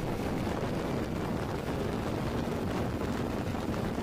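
Steady wind noise on a motorcycle-mounted camera's microphone, over the low running noise of the motorcycle's engine and tyres while riding on the open road.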